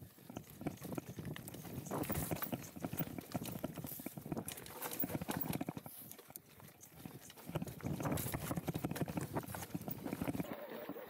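Mountain bike descending a rocky trail: a dense, uneven clatter of the tyres and bike knocking over loose stones and rock steps.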